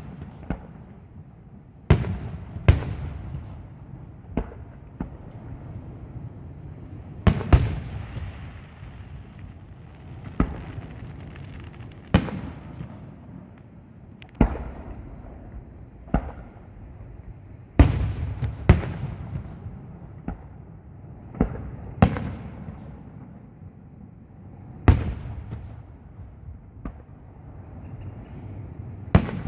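Aerial fireworks display: a steady run of shell bursts, sharp bangs every second or two, some in quick pairs, each followed by a rumbling echo.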